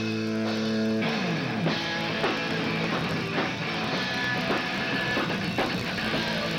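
Hardcore punk band playing live with two distorted electric guitars, bass and drum kit. A held, ringing chord gives way about a second in to a note sliding down in pitch as the full band comes in, with hard-hit drums and cymbals under the guitars.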